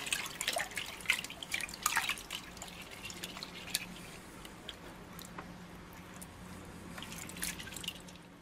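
Water dripping and splashing in a plastic bucket as a hand works a submerged 3D-printed part, with many small plinks and clicks, busiest in the first few seconds and again near the end. A faint steady low hum runs underneath, and everything fades out at the end.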